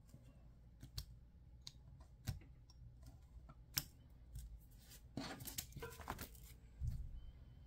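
Pen-style craft knife cutting small pieces out of a paper cutting by hand: quiet, scattered sharp clicks as the blade pierces and drags through the paper. About five seconds in there is a second of paper rustling as the sheet is shifted.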